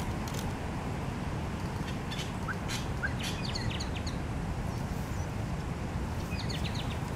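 Steady wind noise on the microphone, with a few short bird chirps in the background that come in a cluster about two to four seconds in and again near the end.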